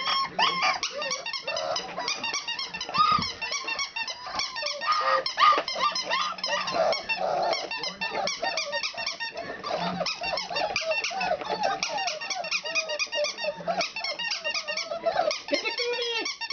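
Litter of four-week-old puppies whining and squealing continuously in many overlapping high squeaks, with small growls and yips as they scrap over a toy.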